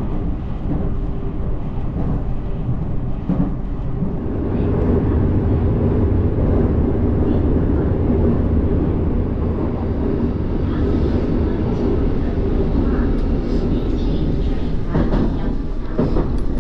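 Aichi Loop Railway electric train running between stations, heard from inside the car: a steady low rumble of wheels on rail that grows a little louder about four seconds in, with a few short knocks near the end.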